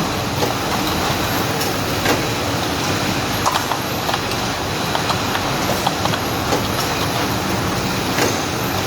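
Automatic shrink-wrapping machine running: a steady mechanical noise dotted with irregular clacks and knocks, with a faint high whine.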